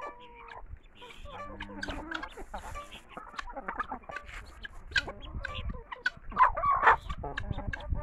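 A flock of chickens and helmeted guineafowl clucking and calling while they peck at food, with many short pecking taps; one louder call comes about six and a half seconds in.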